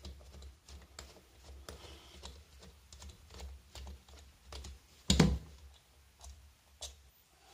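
Small clicks and taps of a Phillips screwdriver working out the float-bowl screws of a motorcycle carburetor, with one louder knock about five seconds in.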